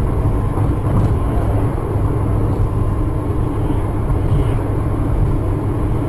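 Steady low rumble of a moving car's road and engine noise, heard from inside the cabin through a dashcam microphone.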